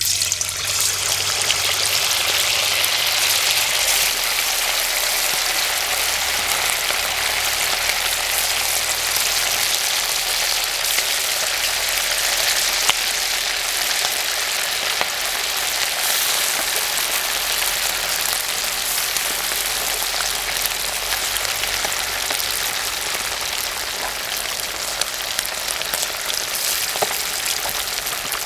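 Marinated chicken pieces frying in hot oil, a dense, steady sizzle that starts suddenly and eases slightly toward the end.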